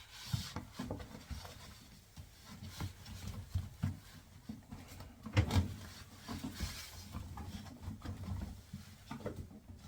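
Rubber washing-machine door boot gasket being handled and worked into place, slick with detergent: irregular rubbing and soft knocks, the loudest about five and a half seconds in.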